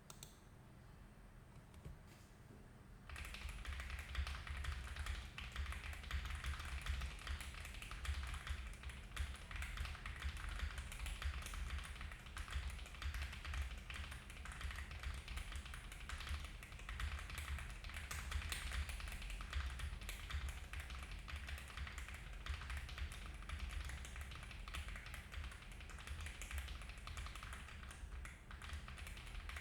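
Continuous typing on a Zoom75 mechanical keyboard with stock Moondrop Lunalight switches, a polycarbonate plate, full foam and GMK keycaps: a dense run of marbly keystrokes. The typing starts about three seconds in, after a quieter opening.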